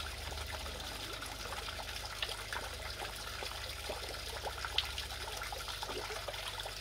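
Oase Water Starlet pond fountain running: thin jets of water splashing and trickling back into the pond in a steady patter of droplets, over a low steady hum.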